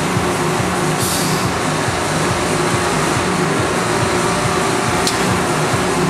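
Johnsford VMC-500 CNC vertical mill running a test program that cycles its carousel tool changer and moves the axes: a steady mechanical hum with a low drone, a short hiss about a second in and a sharp click near the end.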